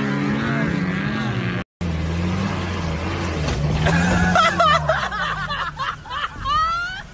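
Off-road vehicle engines running hard on a dirt track, then, after a cut, a pickup's engine revving up and down as it labours stuck nose-down in deep mud. From about halfway through, onlookers' voices, shouting and laughter, ride over the engine.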